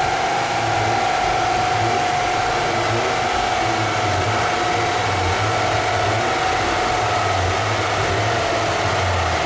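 A steady rush of air from a large rolling-road cooling fan, mixed with a steady mechanical hum. One high tone in it slowly drops a little in pitch.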